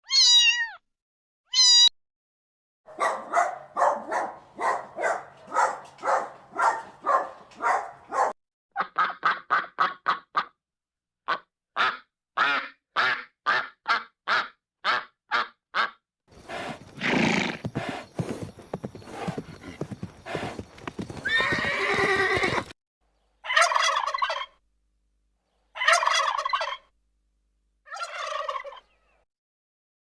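A run of farm-animal calls: a cat meowing twice at the start, then a duck quacking in quick repeated runs of calls, then a noisier stretch and, near the end, three separate louder calls.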